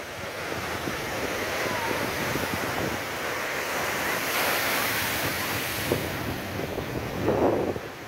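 Rough storm surf breaking and washing over the breakwater blocks, a continuous rushing of water that swells around the middle, with wind buffeting the microphone.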